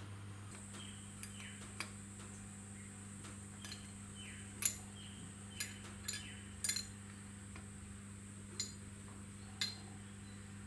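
Light metallic clicks and clinks of a spanner working the adjuster and lock nut of a rotary screw compressor's minimum pressure valve. There are about eight scattered taps, the sharpest about halfway through, over a faint steady hum.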